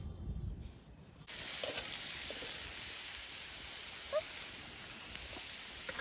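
Meat frying, a steady sizzle that starts abruptly about a second in, after a low rumble, with a few faint pops.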